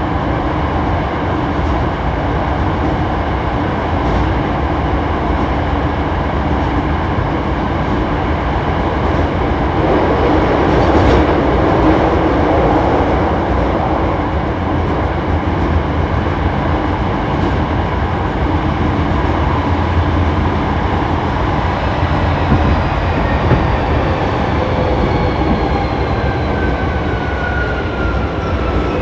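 Hankyu 7300-series electric train running: a steady rumble of wheels on track, from the car noted for its unusual running sound. From about two-thirds of the way in, a whine of several tones falls slowly in pitch as the train slows.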